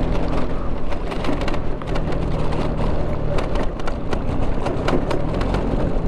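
LML NV scooter's two-stroke engine running steadily while riding over a rough, stony dirt track, with frequent sharp rattles and knocks from the bumps.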